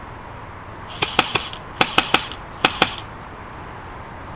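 Airsoft guns firing in three short bursts of sharp snapping shots about a second apart, with a mechanical whir under each burst.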